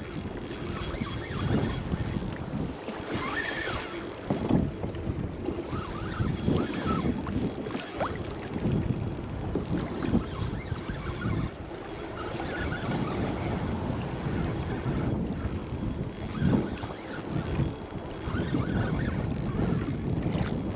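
Water lapping and splashing against a plastic kayak hull on choppy sea, with gusty wind noise on the microphone.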